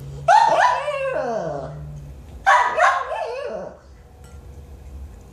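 A dog giving two drawn-out, whining bark-howls at its food bowl while eating, each sliding in pitch and falling away at the end; the second stops about two-thirds of the way in.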